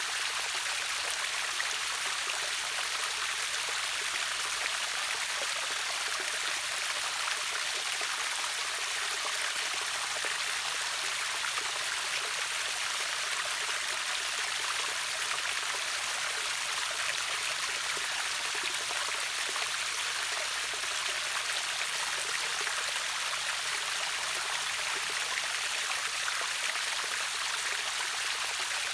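River water rushing over a small waterfall: a steady, even splashing hiss with no breaks.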